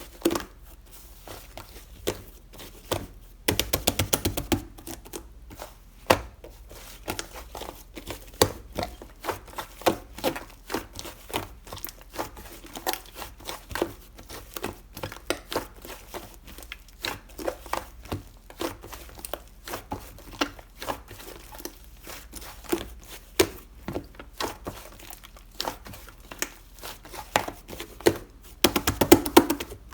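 Slime being squeezed, poked and stretched by hand, making irregular sticky clicks and crackles, with two denser runs of rapid crackling, one about four seconds in and one near the end.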